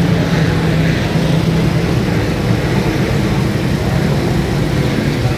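Loud, steady engine drone holding a constant pitch, with a noisy haze over it.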